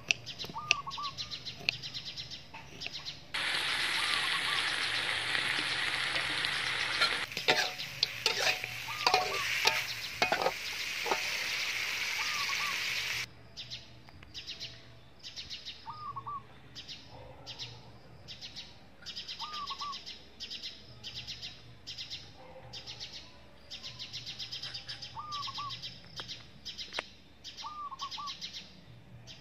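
Birds outdoors: one bird repeats a short two-note call every few seconds over a fast, even run of chirps. From about three seconds in until about thirteen seconds, a loud steady hiss covers them.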